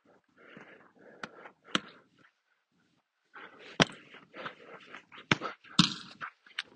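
Soccer ball being dribbled: about six sharp knocks of foot on ball and feet on the ground amid shuffling steps, with a short pause a little past two seconds in and the hardest touches in the second half.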